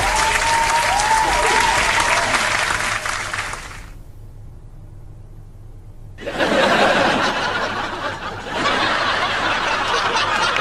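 A rushing, rain-like noise with a faint wavering whistle fades out about four seconds in, leaving a low hum. About six seconds in the noise comes back under a few people's low, muttered voices and snickering.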